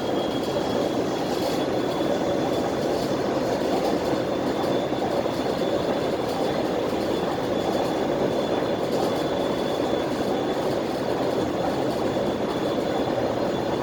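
Inside a running rapid-transit train car: a steady rumble with a thin high whine held throughout, and a few faint clicks.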